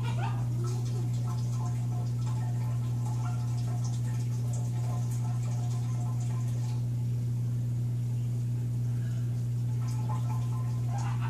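Quaker parrot (monk parakeet) crying softly like a human infant: faint broken calls, with a wailing glide at the start and another near the end, over a steady low hum.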